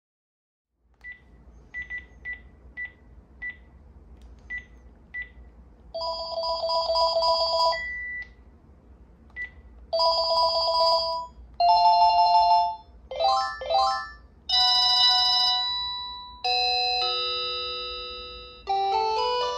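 Panasonic KX-TGA402 cordless phone handset sounding a string of short single beeps, then playing its ringtones one after another: fast warbling electronic trills, a quick rising run of notes, and short electronic melodies, each lasting a second or two with brief gaps between.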